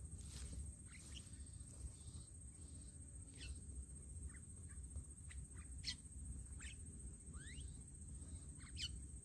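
Birds calling: scattered short chirps and whistles, a few of them rising in pitch, heard faintly over low background rumble.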